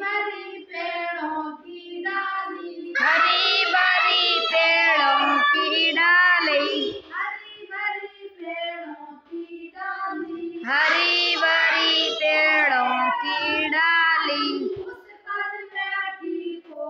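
Children and a woman singing a simple children's song. Quieter lines alternate with louder, fuller group lines about every four seconds, like a lead sung and then repeated by the group.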